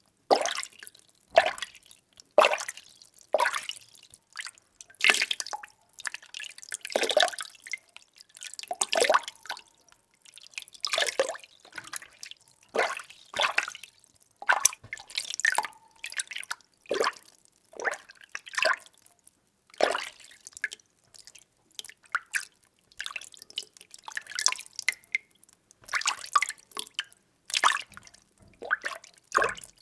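Water being stirred: short sloshing swishes and splashes come about once a second, each dying away quickly.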